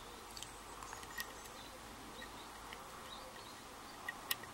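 Faint metallic ticks of a hook pick and tension wrench working the pin tumblers of an Asec 5-pin euro cylinder, the pick probing the rear pins, four and five. A few scattered light clicks, with two sharper ones close together about four seconds in.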